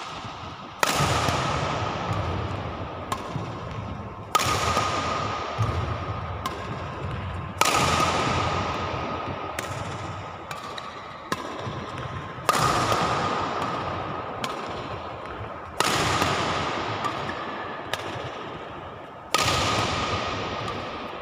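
Loud sharp hits that repeat about every three to four seconds, each trailing off in a long, slowly fading rush, with softer knocks in between.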